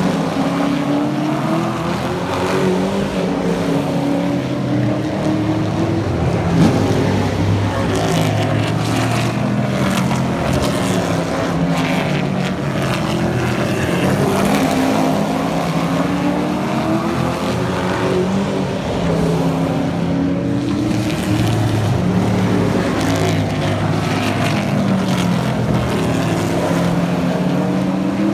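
Super Truck race truck engines running at racing speed as several trucks lap the track, their pitch repeatedly rising and falling as they pass and accelerate out of the turns. A brief loud knock about six and a half seconds in.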